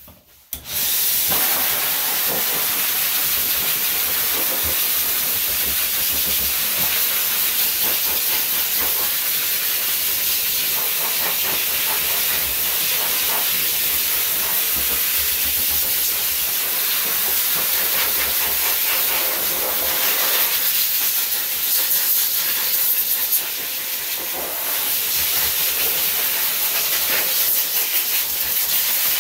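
Dog grooming blow dryer blasting air through its hose and nozzle, a loud steady rushing hiss that starts about a second in, with a brief slight dip near the end.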